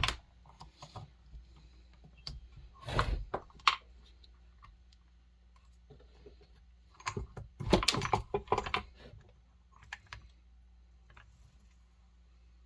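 Scattered clicks and knocks of chainsaw parts and tools being handled during disassembly, in three short clusters with quieter stretches between.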